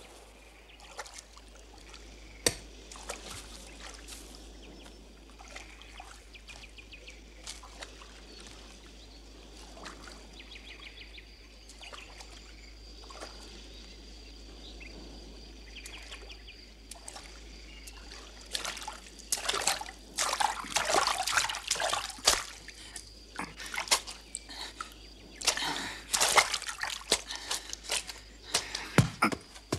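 Pond water splashing and sloshing as a man wades and is hauled out onto the bank. It comes in loud bursts in the last third, after a long stretch of faint outdoor quiet with scattered small clicks.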